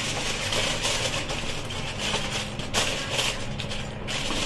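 Aluminium foil crinkling and rustling as it is pressed and wrapped around a cooking pot, an irregular crackle.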